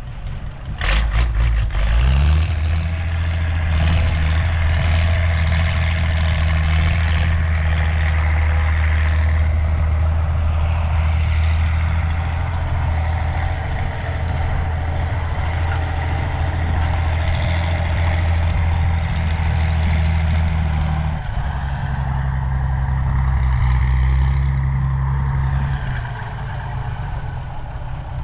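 Valmet 118 tractor's diesel engine with a straight-through exhaust running steadily at working revs. The revs climb about two seconds in, drop slightly past the middle, and ease off near the end.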